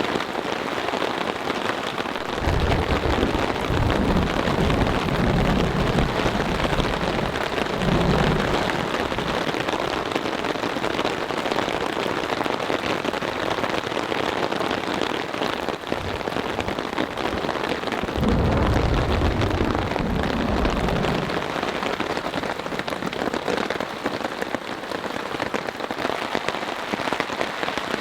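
Heavy rain coming down hard on a tarp shelter overhead, with two long low rolls of thunder, one starting a couple of seconds in and lasting several seconds, the other starting a little past the middle.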